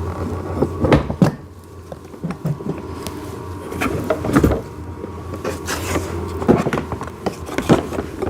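Plastic parts of a ride-on toy backhoe being handled and fitted together, giving scattered knocks and clicks over a steady low hum.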